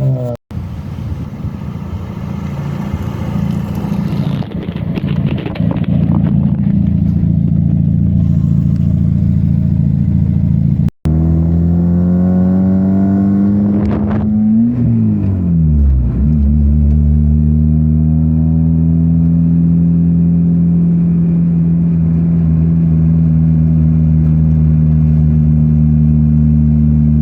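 Freshly rebuilt Mazda Miata four-cylinder engine driving: the revs climb, drop away about halfway through, then hold at a steady cruise. The sound cuts out for an instant twice.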